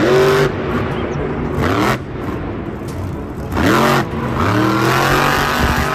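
Monster-truck engine sound effect: an engine revving up several times, each rev rising in pitch.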